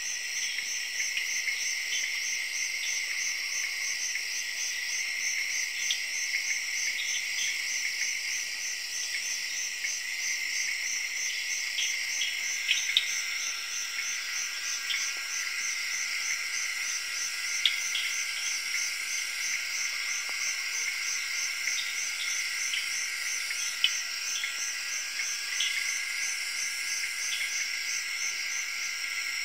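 Night-time insect chorus in tropical forest: a steady shrill drone with a fast, evenly pulsing high trill above it, and scattered short sharp chirps.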